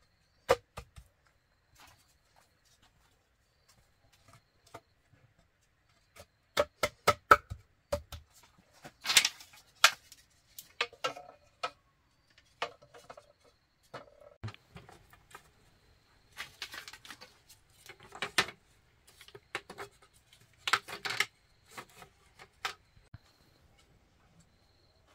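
Irregular knocks, taps and short scrapes of objects being handled, with a quick run of about five knocks a few seconds in.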